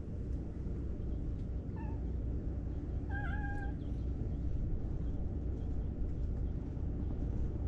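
Cat meowing twice: a short meow about two seconds in, then a longer one about a second later, over a steady low rumble.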